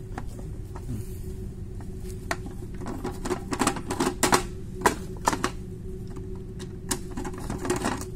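Screwdriver working the cover screws of an electric valve actuator's plastic housing: a run of small clicks and taps, thickest about three to four and a half seconds in and again near the end, over a steady low hum.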